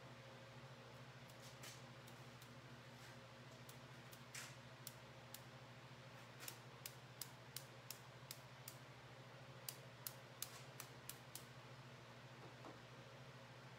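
Faint, irregular sharp taps as orange paint is sprinkled from a brush onto the marbling bath, a few a second in clusters, over a low steady hum.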